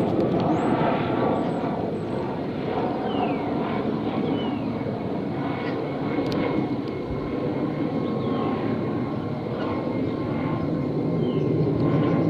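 MD 520N NOTAR police helicopter flying overhead: steady rotor and turboshaft engine noise with a thin high whine, swelling slightly near the end.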